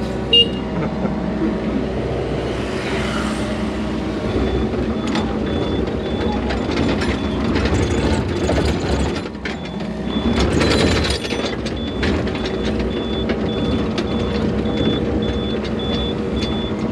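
Yanmar excavator's diesel engine running steadily with hydraulic noise, heard from inside the cab, swelling louder for a moment about two-thirds of the way through. A sharp click comes just after the start, and from about four seconds in a short high beep repeats at a steady pace.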